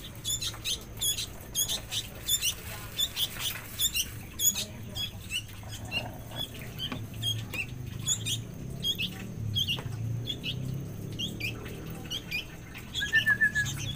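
Young birds cheeping to be fed: a quick, continuous run of short, high-pitched chirps, with a brief lower trill near the end.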